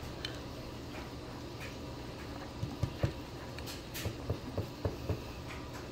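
A baby's hand patting and slapping a table top: a run of soft taps that starts about halfway through, over a low steady hum.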